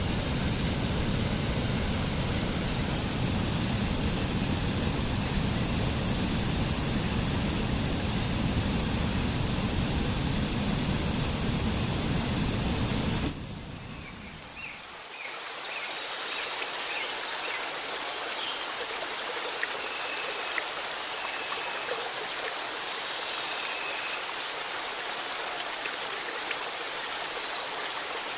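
Waterfall rushing, a dense, deep roar of falling water. About halfway through it cuts abruptly to a quieter, thinner rush of flowing water with little low end.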